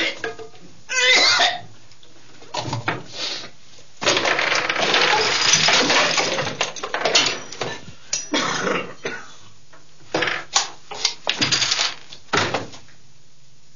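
Objects clattering and thudding as they are knocked over, and a person falling to the floor, in irregular bursts with short quiet gaps between them.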